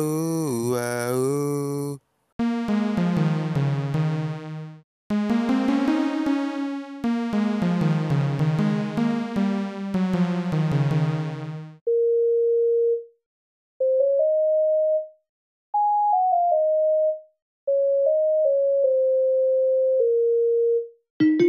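A short synthesized monster song in three parts. A low male chanting vocal ends about two seconds in. Then an airy electric-keyboard part plays phrases of chords until about halfway, followed by a single pure, whistle-like synth tone playing a slow melody of held notes that slide from one to the next, with kalimba plucks starting near the end.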